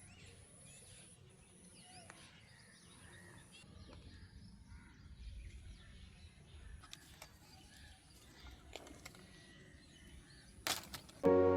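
Quiet outdoor morning ambience: scattered faint bird chirps over a low rumble, with a high, thin buzz repeating in pulses about a second long. Near the end there is a sharp click, and then music starts abruptly.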